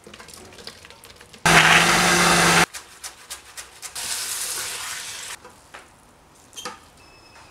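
A few light clicks as green chillies drop into a blender jar, then the blender running loudly for about a second as it grinds the chilli paste. This is followed by the sizzle and scrape of a spatula stirring rendang in a wok, and a few scrapes and a knock from a spoon in a pot of yellow glutinous rice.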